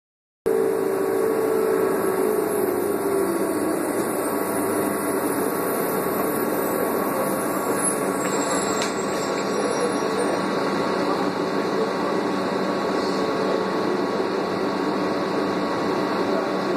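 Cabin running noise of a 2001 New Flyer C40LF bus repowered with a Doosan CNG engine: a steady engine and road hum while under way. It starts suddenly about half a second in, and a whine drops slightly in pitch over the first few seconds.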